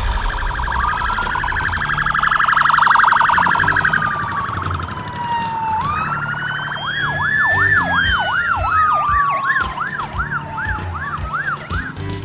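Ambulance siren wailing in slow rising and falling sweeps. From about seven seconds in, a fast yelp of about two sweeps a second sounds over a second slow wail.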